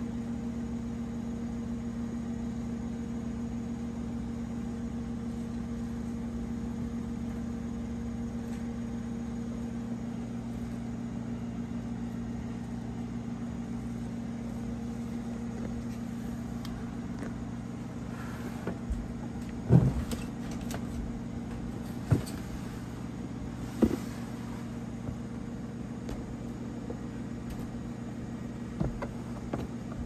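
A steady low electrical hum. In the last third, a few sharp knocks and clatters of plastic reptile tubs being handled in a rack, the loudest about two-thirds of the way in.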